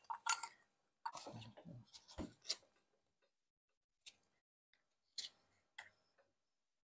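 A few light, scattered metal clicks and taps from a C-clamp being moved and screwed down on a brake caliper to press a piston back into its bore.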